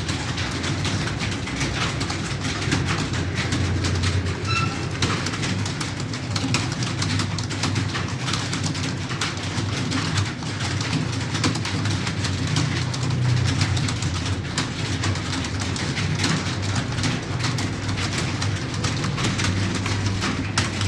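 Computer keyboard being typed on rapidly and continuously, a dense run of irregular key clicks over a steady low hum.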